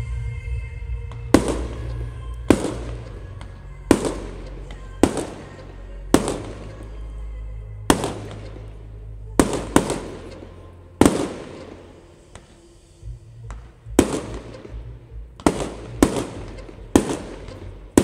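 Fireworks display: aerial shells bursting in a string of about fifteen sharp bangs, roughly one every second, some coming in quick pairs, each followed by a fading echo.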